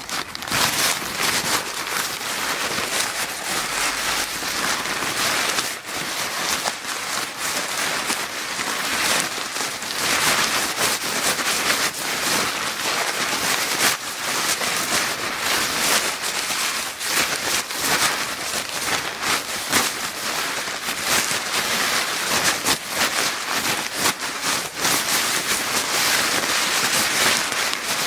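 Paper bag being crinkled steadily, a dense, unbroken run of small crackles and rustles.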